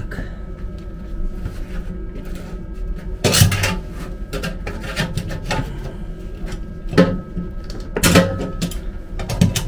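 Metal parts and hand tools knocking and clattering while a train-car vacuum toilet's diaphragm assembly is handled and lined up on its mounting studs, with four sharper knocks standing out over a steady low hum.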